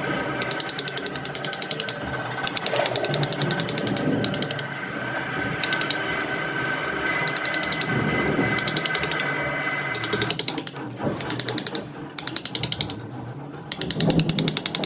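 Wood lathe running with a steady motor whine, while a cutting tool chatters against the spinning wood in bursts of rapid clicking.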